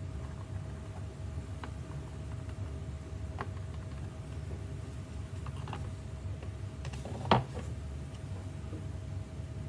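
Faint taps and scratches of a pencil marking a guitar top and hands handling the guitar, with one sharp knock about seven seconds in, over a steady low hum.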